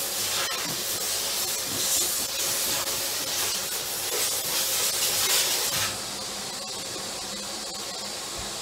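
Vacuum cleaner running, its nozzle sucking air at a microwave's air vents: a rushing hiss that surges and varies as the nozzle moves, then settles lower and steadier about six seconds in.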